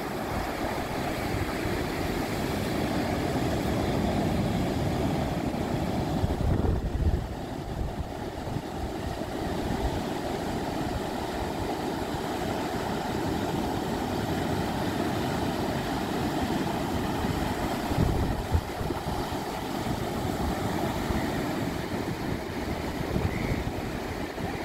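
Ocean surf breaking and washing up the beach: a steady rushing noise that swells into louder low rumbles about 7 and 18 seconds in.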